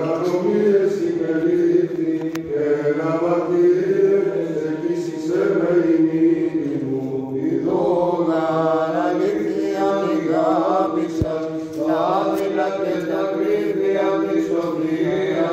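Orthodox-style chant as background music: a sung melody with ornamented, wavering turns over a steady held drone.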